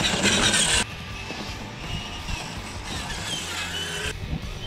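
Radio-controlled scale crawler truck's electric motor and gearing whining, rising and falling with the throttle as it climbs a dirt pile, with a loud rush of noise for the first second.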